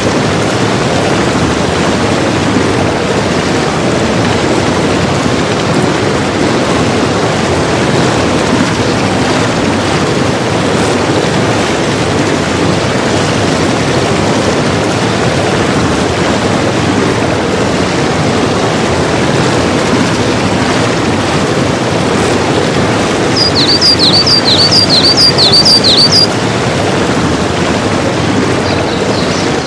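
Steady, loud rushing noise like surf. About three-quarters of the way in, a quick run of about eight high chirps, about three a second, rises above it.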